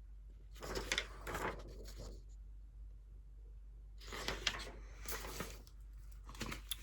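Paper pages rustling and crinkling as printed sheets are handled and turned, in two spells: one about a second in and another from about four seconds in.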